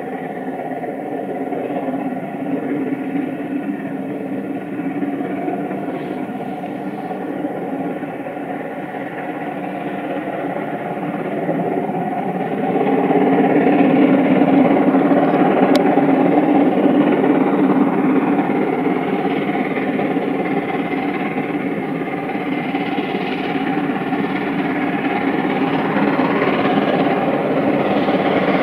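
LMS Princess Coronation Class 4-6-2 steam locomotive 46233 Duchess of Sutherland approaching and passing while working hard under steam, with its coaches running on the rails. The sound grows louder, rising steeply about twelve seconds in.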